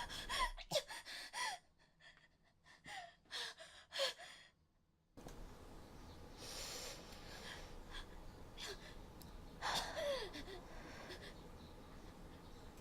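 Faint gasps, breaths and short grunts from one voice actor, effort sounds voiced for a fight, with a falling cry about ten seconds in.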